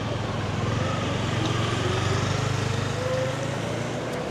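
Small motor-vehicle engine running along the street, its pitch rising over a couple of seconds as it speeds up, over steady road noise.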